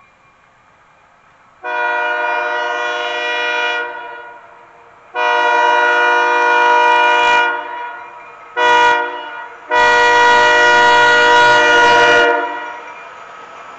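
Diesel locomotive air horn sounding the grade-crossing signal: two long blasts, one short and a final long one, the warning for a road crossing ahead.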